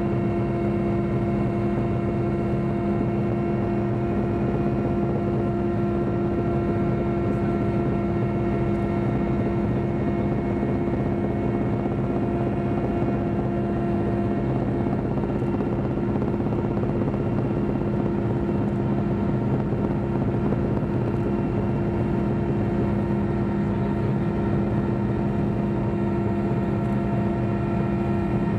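Helicopter cabin noise: a steady, unchanging drone of engines and rotor, with a strong low hum and several higher steady tones, heard from inside the cabin.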